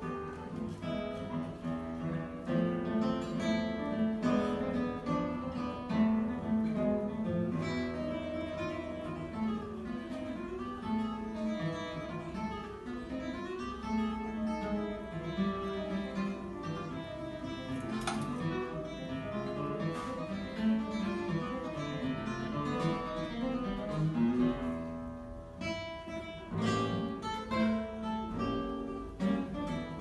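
Solo classical guitar playing live, a continuous piece of plucked notes and chords.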